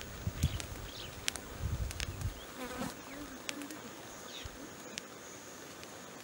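Flying insects buzzing, over a steady high-pitched insect drone, with a few low thumps in the first two seconds and some short bird chirps.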